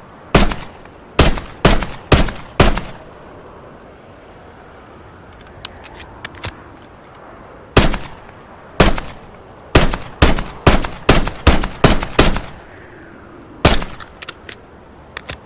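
Makarov PM pistol firing: five shots about half a second apart, a pause with a few faint metallic clicks, then a shot followed by a quick run of about eight more, and one last shot near the end.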